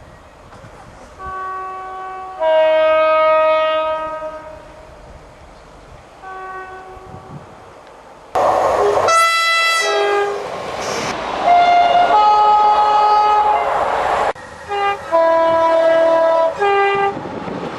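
Series of British train horns sounded one after another: a two-note horn blast near the start, a short blast, then louder horn notes over the rushing noise of a train, and several short blasts near the end.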